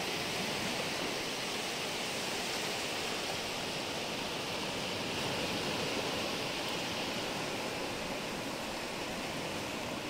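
Steady rushing noise of waves and wind on the microphone, recorded without an earphone mic.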